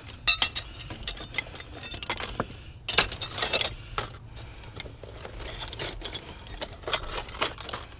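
Metal hand tools, files and screwdrivers, clinking and rattling against one another as they are handled and sorted through, with a busier run of clinks about three seconds in.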